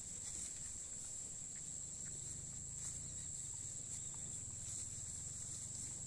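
Steady high-pitched chirring of insects in grassland, with a low rumble of wind underneath.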